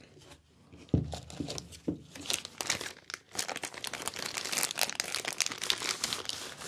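A few knocks as a hard plastic microphone suspension mount is set down on a table, the first about a second in, then a clear plastic bag crinkling and crumpling in the hands.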